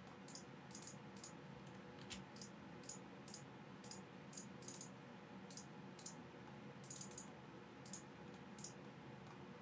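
Computer mouse clicking, a Logitech MX Master 2S: short sharp clicks coming irregularly about twice a second, some in quick pairs, over a faint steady hiss.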